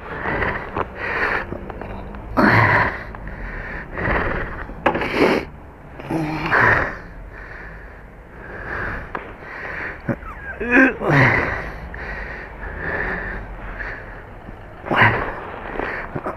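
A person breathing heavily and noisily right at the microphone, in irregular loud breaths about a second apart.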